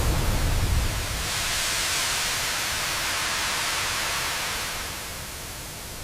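A low rumble that dies away about a second in, followed by a steady hiss that eases slightly near the end.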